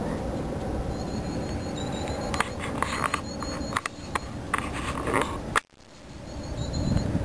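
Common chiffchaff singing its repeated short, even notes over a low rumble. A scatter of knocks and rustles comes in the middle, then the sound cuts out abruptly for a moment and fades back in near the end.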